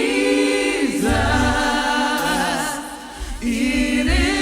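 Gospel church choir singing a cappella, voices only, in long held chords that swell and ease off, with a brief dip about three seconds in.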